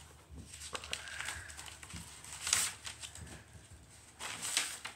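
Paper pages of a spiral-bound sketchbook being turned and handled, with two rustling swishes, one about two and a half seconds in and a longer one near the end.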